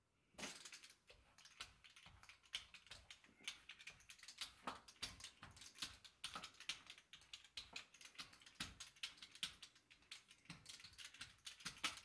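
Small hand-held pizza dough roller working a round of pizza dough on a floured wooden cutting board, giving faint, rapid, irregular clicks and taps.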